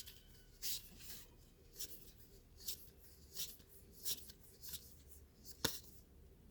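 Baseball trading cards sliding off one another as a pack is flipped through one card at a time: faint, short swishes about every three quarters of a second, with a sharper tap near the end.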